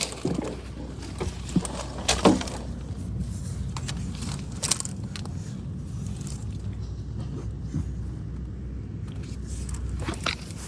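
A vehicle engine running with a steady low rumble, with scattered clicks and knocks, the loudest about two seconds in.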